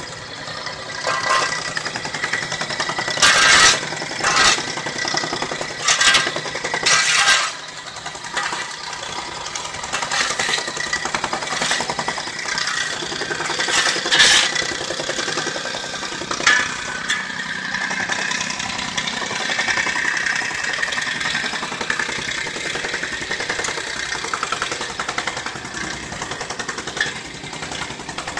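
Yanmar mini excavator's diesel engine running steadily, with metal shovels scraping and clanking on the broken pavement several times, loudest in the first half.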